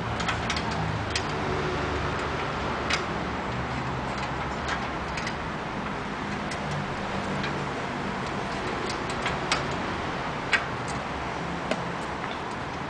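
Scattered, irregular metallic clicks of hand tools working on bolts and nuts during assembly of the front wheel and brake arm, over a steady background hum.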